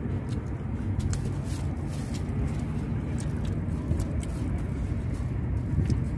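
Close-up eating sounds of raw lettuce leaves and rice with chicken offal being chewed: scattered crisp crunches and clicks over a steady low rumble.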